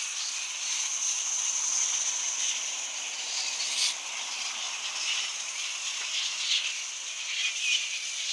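Massed flying foxes (fruit bats) calling as a huge colony flies out: a dense, continuous chatter of high squeaks and screeches blending into a steady high hiss, with a few louder individual calls standing out.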